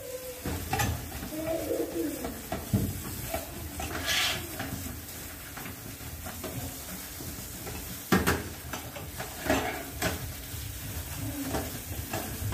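Tap water running into a stainless-steel sink while a large metal tray is scrubbed with a sponge. The tray knocks against the sink a few times, the loudest clank about eight seconds in.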